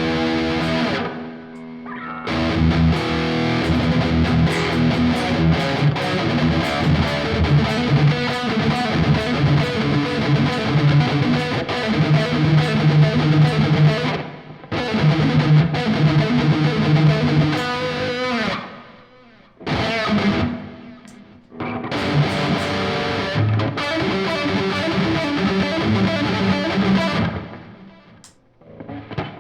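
Ibanez AZ24S electric guitar played with distortion, in sustained phrases broken by a few short pauses.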